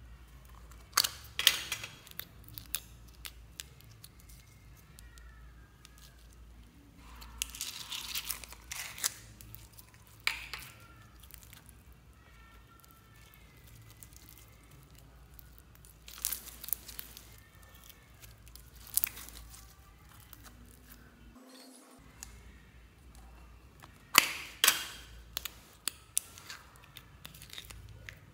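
Clear slime packed with small beads being squeezed and stretched by hand, giving several bursts of crackling and popping clicks with quiet stretches between.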